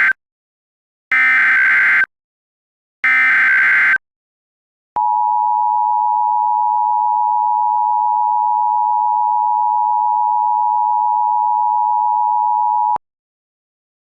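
Emergency Alert System tones. The end of one SAME header data burst comes first, then two more short data bursts about a second apart. After a one-second pause, the steady two-tone EAS attention signal (853 and 960 Hz) sounds for about eight seconds and cuts off sharply.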